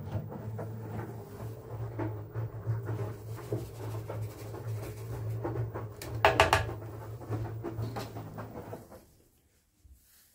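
Plastic measuring scoop scraping and tapping as oxygen stain-remover powder is scooped and spread over damp towels in a basin, with a sharp burst of scraping about six seconds in. A steady low hum runs underneath and stops near the end.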